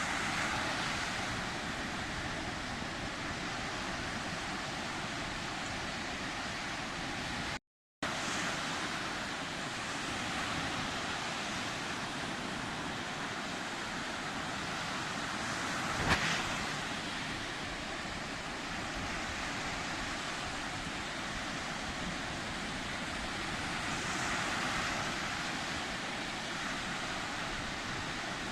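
Sea surf: a steady wash of waves on the shore, swelling and easing every several seconds, with a sharper, louder wave about sixteen seconds in. The sound cuts out completely for a fraction of a second about eight seconds in.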